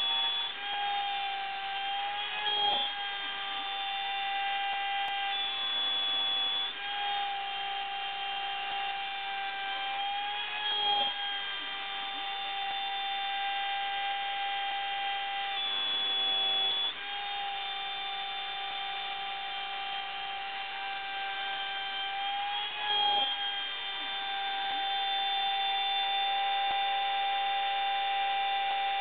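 Homemade CNC gantry router running, its motors giving a steady whine whose pitch shifts briefly every four to six seconds as the machine's moves change.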